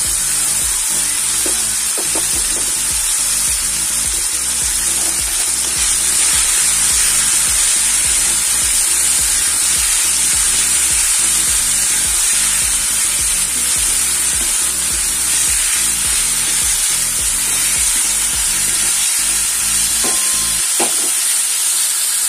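Chopped tomatoes, green chillies and mixed vegetables sizzling in hot oil in a kadai, a steady frying hiss.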